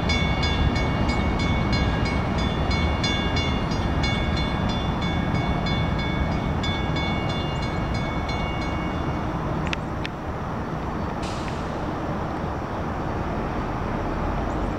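Mechanical crossing bell (a WCH bell) on a railroad crossing signal ringing with rapid, even strikes over the steady rumble of freight cars rolling past. The bell stops about ten seconds in as the crossing clears.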